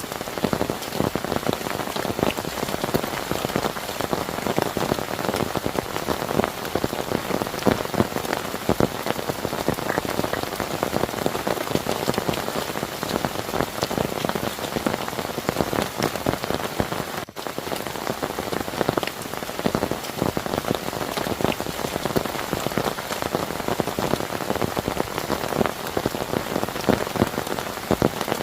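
Heavy rain falling steadily, a dense patter of drops striking a surface, with one brief dip about two-thirds of the way through.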